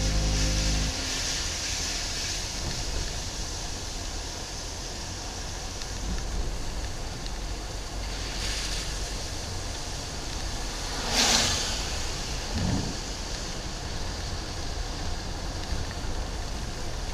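A car driving on a wet road in the rain, heard from inside: the steady hiss of tyres on wet asphalt mixed with wind noise. About eleven seconds in there is a louder rushing swoosh, with a smaller one shortly after.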